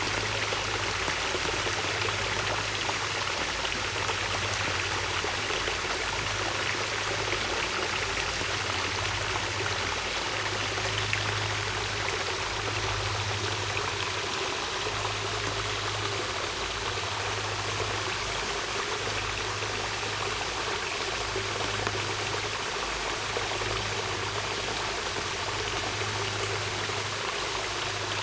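Small shallow stream flowing steadily over rocks, water splashing and trickling through a little cascade between stones.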